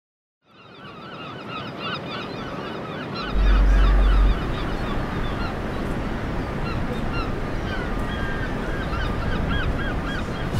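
A flock of birds calling, many short calls overlapping and repeating over a steady background hiss. About three seconds in, a loud, deep, low rumble lasts for about a second.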